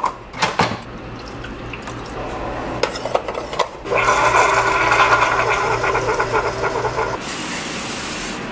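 A Keurig single-serve coffee maker brewing into a mug: the brewer hums and coffee streams in, getting louder about four seconds in. Near the end comes a short hiss of aerosol cooking spray onto a frying pan.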